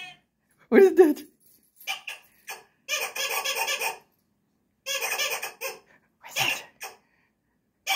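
Squeaky toy sound effects played from a TV: short squeaks, a gliding squeak about a second in, and two runs of rapid squeaking lasting about a second each, near the middle of the stretch.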